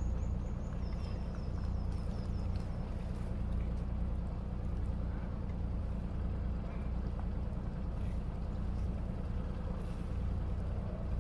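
Small sailing yacht's engine running steadily at low speed, a constant low rumble as the boat motors through the marina.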